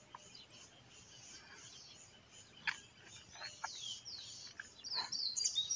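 Faint birdsong: a run of high, quick downward-sliding whistled notes that starts about three and a half seconds in and grows a little louder toward the end.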